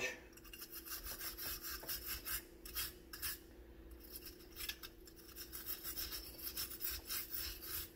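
Brass wire brush scrubbing the metal pins of a multi-pin cable connector in rapid scraping strokes, several a second, with a brief pause about three and a half seconds in: cleaning light corrosion off the pins.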